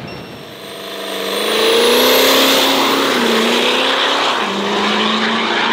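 Diesel drag race car accelerating hard down the track at full throttle. The engine swells to full power over the first two seconds while a faint high whine climbs in pitch, and the engine note drops lower about four seconds in.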